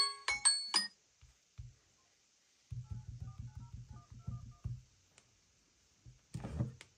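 Samsung Galaxy Z Fold phone's dial pad sounding a quick run of about ten touch-tone beeps, each with a soft fingertip tap on the screen, as a phone number is dialled. In the first second, a ringtone's last notes cut off as the call is ended.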